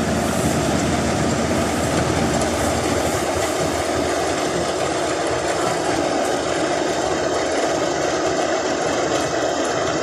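Combine harvester running, its engine and machinery making a loud, steady drone.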